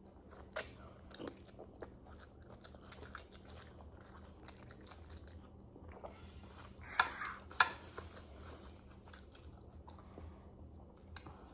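Eating sounds close to the microphone: chewing and biting, with many small scattered clicks and two louder sharp sounds about seven seconds in.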